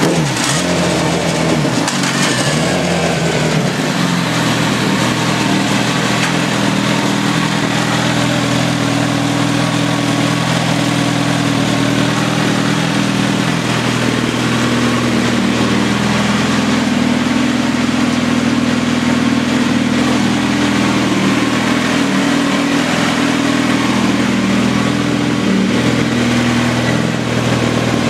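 Kawasaki ZX-14 motorcycle's inline-four engine running through a Brock's CT single full titanium exhaust with carbon tip. The revs change briefly in the first couple of seconds, then hold at a steady speed for a sound-level reading.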